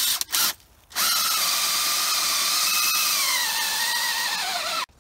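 Cordless DeWalt drill with a hole saw boring into a birch trunk: two short bursts, then a steady run of about four seconds. Its whine sags lower toward the end and cuts off suddenly as the drill's battery dies.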